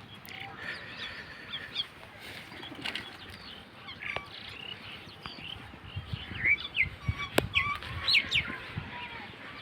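Several birds chirping and calling: many short notes that slide up or down, growing busier in the second half, with a few low thuds and clicks among them.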